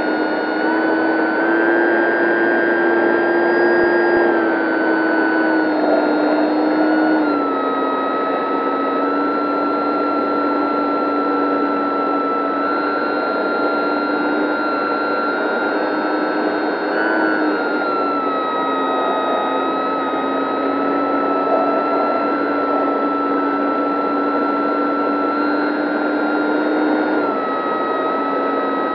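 Dynam 3720-650kV brushless electric motor and propeller whining, heard from an onboard camera with air rushing past. The pitch steps up about a second in, drops around a quarter of the way through, and shifts again a few more times as the motor speed changes.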